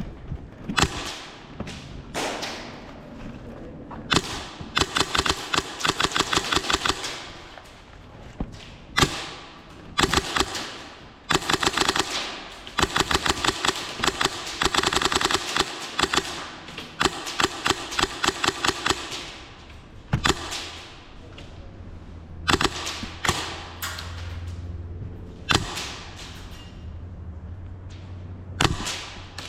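Airsoft guns firing in repeated full-auto bursts of rapid, evenly spaced clicks, each burst lasting one to three seconds, with single shots in between.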